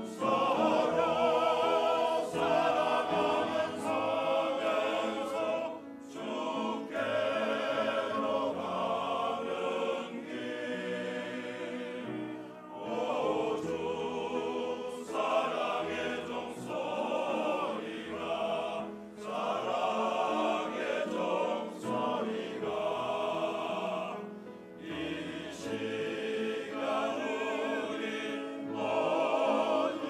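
Mixed church choir singing a hymn in harmony, phrase by phrase, with short breaks between the phrases.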